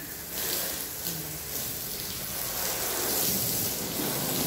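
Water spraying from a garden hose onto a car and wet pavement, a steady hiss.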